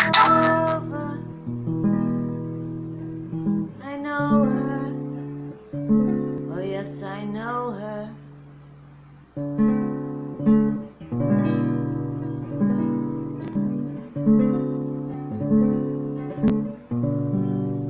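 Acoustic guitar strummed in a steady rhythm, with a woman's voice singing over it in the first half. The guitar pauses briefly about eight seconds in, then carries on strumming alone.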